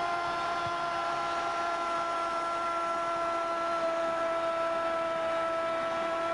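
Television football commentator's long drawn-out goal cry, a held "gooool": one unbroken high-pitched shout sustained on a single note through the whole stretch, calling a goal just scored.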